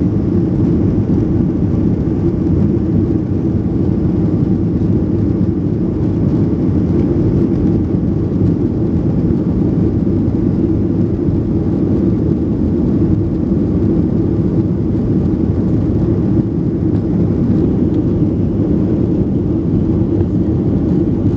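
Boeing 737-800 cabin noise in flight: a steady low drone of its CFM56 jet engines and rushing air, unchanging throughout.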